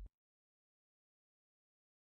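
Near silence: the last of the closing music dies away right at the start, then nothing.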